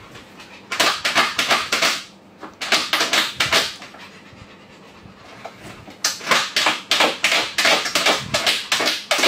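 Labrador retriever panting rapidly in three bouts, about six quick breaths a second, with short pauses between bouts.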